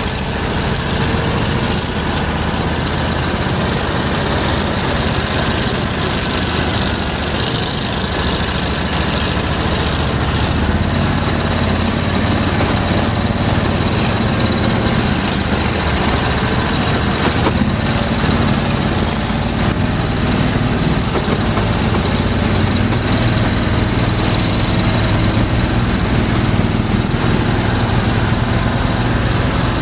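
Engines of tracked Argo 6x6 amphibious ATVs running steadily as they drive through a creek.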